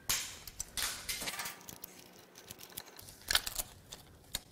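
Light metallic clicks and rattles, coming in a few scattered clusters: a steel timing chain and its parts being handled and worked off the engine by hand.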